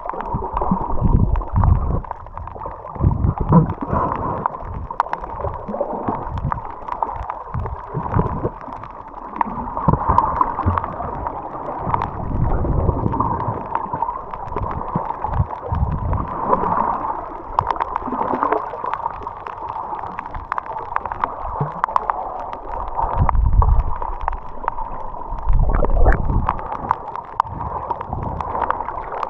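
Muffled underwater sound picked up by a camera held below the surface: irregular low surges of water moving every few seconds over a steady hum, with scattered faint clicks.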